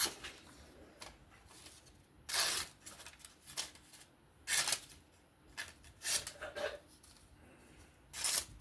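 QSP Penguin folding knife's freshly sharpened 35VN blade making a series of test slicing cuts, about five short strokes a couple of seconds apart, each a brief hiss of the edge passing through the material.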